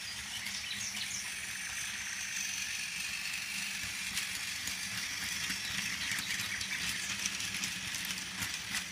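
Motorized toy Thomas the Tank Engine running along plastic track, pulling a line of eight toy cars: a steady small-motor whir with rattling and scattered clicks from the wheels and cars on the track.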